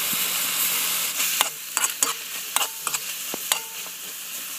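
Clams and leafy greens sizzling in a pan while a metal ladle stirs them, with a cluster of sharp clicks and knocks of the ladle against the pan and shells from about one and a half to three and a half seconds in, a couple of them ringing briefly.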